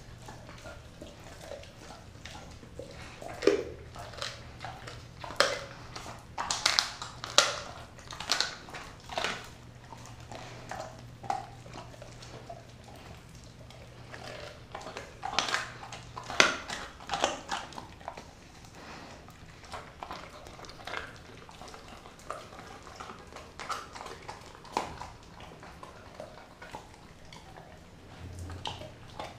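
Doberman eating a piece of raw turkey off a tile floor: wet chewing, licking and gnawing, with irregular clicks and smacks that come in louder bouts.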